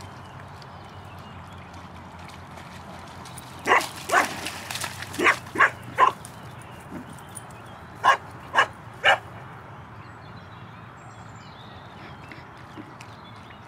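A dog barking in short, sharp barks: two about 4 s in, three more a second later, then three evenly spaced barks about 8 to 9 s in.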